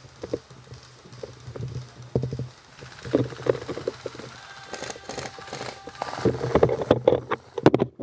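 Irregular clicks, knocks and rattles from an airsoft M4 rifle and its gun-mounted camera being handled and carried on the move. They come thicker and louder over the last couple of seconds, and there is no steady burst of fire.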